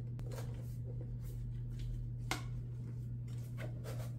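Faint handling noises as a prosthetic balance foot is worked out of its foot shell: soft rubbing and small clicks, with one sharper click about two seconds in, over a steady low hum.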